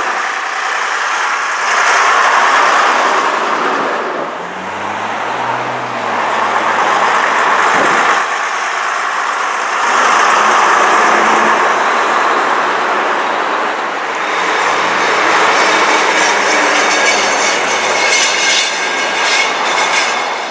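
Vintage AEC Regent RT double-decker bus driving past close by, its diesel engine drone and road noise swelling and fading as it passes, among other street traffic.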